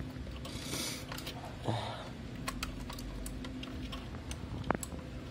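Scattered light plastic clicks and ticks as fingers push a flat ribbon cable into the connector on an Epson T60 printer head, with a little soft rustling of the cable.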